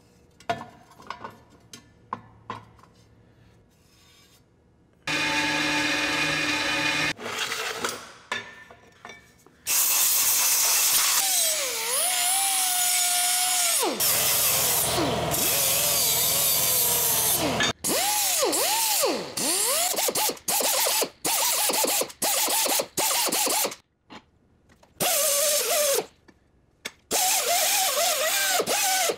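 Handheld power tool working metal, run in spells: a short steady run, a long run of about eight seconds whose pitch dips under load, then a string of short bursts, each spinning up and winding down. Light handling clicks come first.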